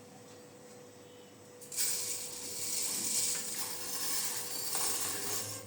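Granulated sugar being poured, a steady hiss of grains that starts about a second and a half in and stops just before the end.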